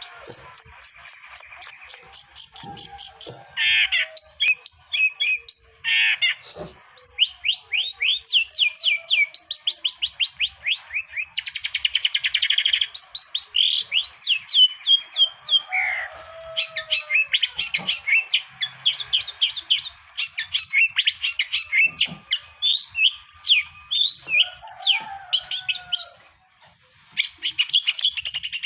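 Long-tailed shrike singing a long, varied song of rapid chattering trills and repeated scratchy notes mixed with whistled phrases, with a short pause near the end.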